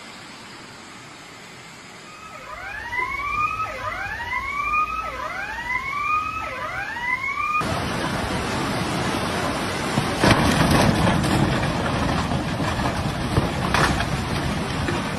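A siren sounding a run of about five quick rising sweeps over faint background noise. About halfway through it cuts to the loud, steady rushing of a fast floodwater torrent.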